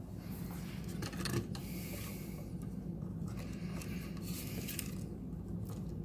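Rustling and scraping of hands working the switch's wire leads and plastic housing at an electrical box, in several irregular stretches, over a steady low hum.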